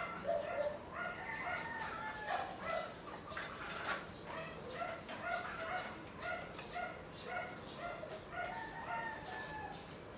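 Dishes and utensils clinking as they are washed at a kitchen sink, a few sharp knocks among them, over a steady run of short pitched calls or squeaks, about three a second.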